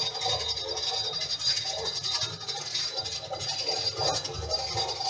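Metal lathe running and facing a large metal disc, the cutting tool scraping steadily across the turning metal with a thin high-pitched whine held throughout over the low hum of the machine.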